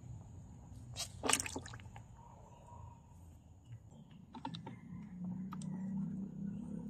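Frogs dropped into a plastic tub with a little water, scrambling and plopping about: a few sharp taps and small wet splashes, the loudest a little over a second in.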